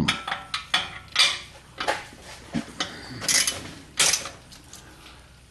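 Irregular metallic clicks and short scrapes of hand tools and exhaust hardware being worked under a Jeep Wrangler, as the new exhaust's bolts and clamps are fitted and tightened.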